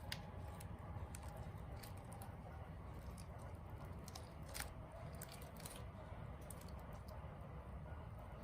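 Homemade slime being handled: faint, scattered sticky clicks and small pops, one a little louder about halfway through, over a low steady hum.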